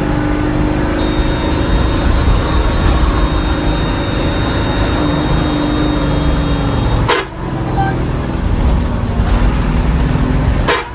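Road traffic noise with vehicle horns sounding, steady and loud, with a brief break about seven seconds in.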